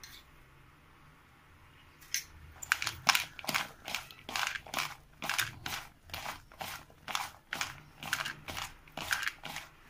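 A hand tossing and squeezing salted thin raw potato slices in a bowl: short rustling strokes about twice a second, starting about two seconds in.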